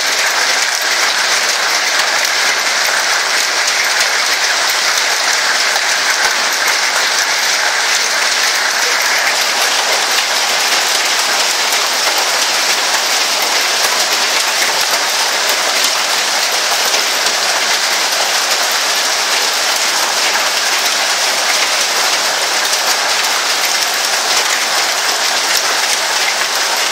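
Heavy storm rain coming down hard: a steady, dense hiss with fine pattering of drops, unchanging throughout.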